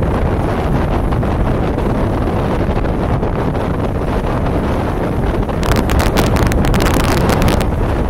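Strong wind buffeting the microphone over rough, breaking surf: a steady low rumble, with a crackling hiss of spray for about two seconds past the middle.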